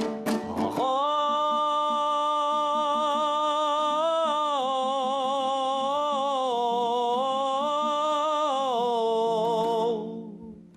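A singer holding one long, wavering, ornamented note of a Kazakh folk song over a quieter accompaniment, fading out near the end.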